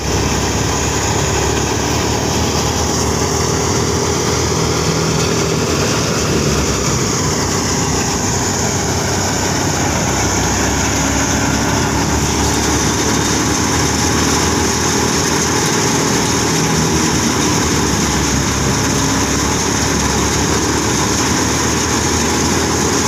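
Tractor-powered wheat thresher running steadily while it threshes wheat: the machine's drum and blower running together with the tractor engine that drives it.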